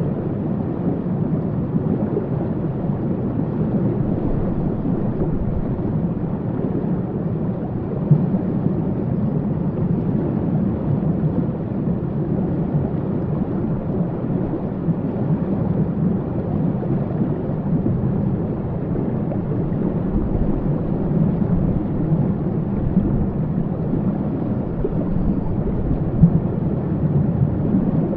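Waterfall: a steady, low, deep rush of falling water that holds constant throughout.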